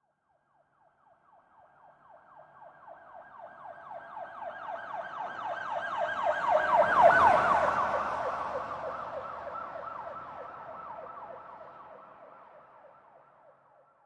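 Police siren in a fast yelp, sweeping up and down in pitch several times a second. It swells from silence to its loudest about halfway through, then fades away again, like a police car passing by.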